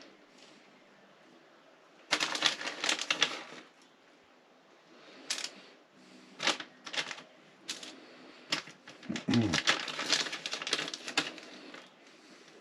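Food-preparation handling sounds: bursts of rustling and crinkling with many sharp clicks and taps, as packaging and a lined baking tray are handled.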